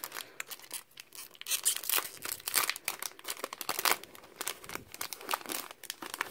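Foil wrapper of a Pokémon TCG booster pack crinkling as it is handled: an irregular run of crackles.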